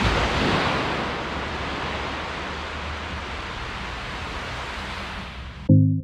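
Surf washing onto a beach: a steady rush of waves that swells in the first second and then holds. It cuts off abruptly near the end, where a loud music chord comes in.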